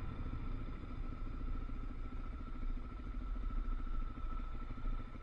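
An off-road vehicle's engine running steadily.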